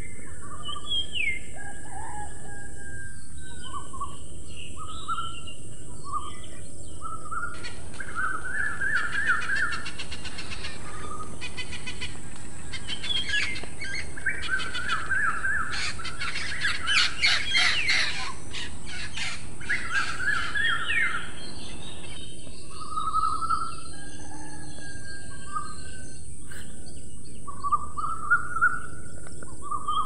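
Several birds chirping and whistling in short rising and falling calls, busiest with rapid trills in the middle, over a steady high hiss.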